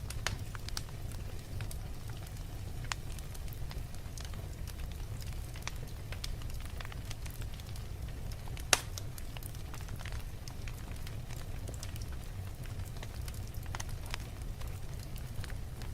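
Fire crackling, with many small scattered snaps over a steady low rumble and one much louder pop about halfway through.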